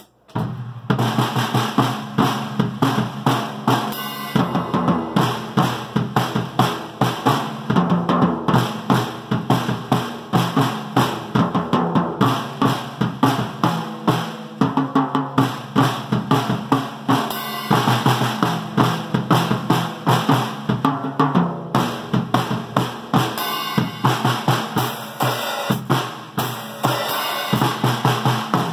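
A drum kit played by a learning drummer: a steady beat of kick drum and snare with cymbals, loud strokes coming about two to three times a second, starting abruptly at the very beginning.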